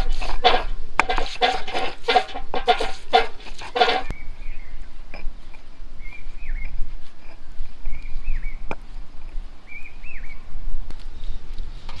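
Stone roller crushing onions on a flat stone grinding slab: wet scraping strokes, about three a second, for the first four seconds, then softer pressing and knocking. A bird chirps a few times in the background.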